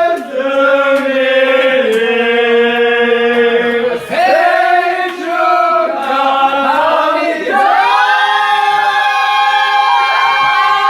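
Several voices singing wordless long-held notes together in harmony, a cappella, moving to a new chord every second or two.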